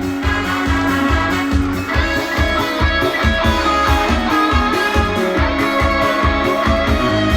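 Live band playing an instrumental passage of a trot song: electric guitar over bass and a steady drum beat.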